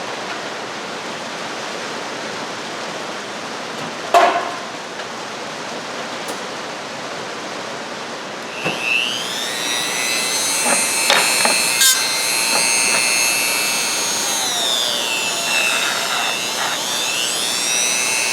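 Rain hisses steadily, with a single click about four seconds in. About nine seconds in, a Dremel rotary tool spins up with a rising whine and runs at high speed, its pitch dipping and climbing again near the end.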